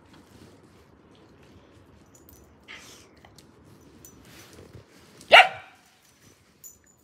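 A dog barks once, a single short bark about five seconds in, with a few faint rustling sounds before it.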